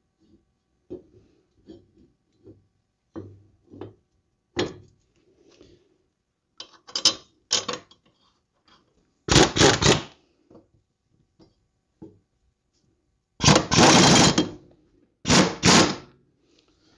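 A lawn mower blade bolt being tightened: scattered small metallic clicks and knocks, then three loud bursts of rapid rattling from the tool, about nine, thirteen and fifteen seconds in.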